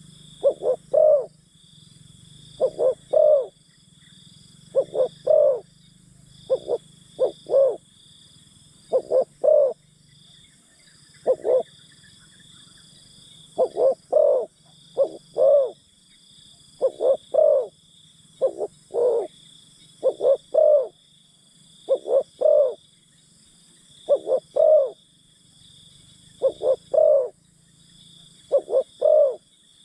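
Spotted doves cooing: short phrases of two or three low notes, repeated every couple of seconds, over a steady faint high-pitched insect-like hum.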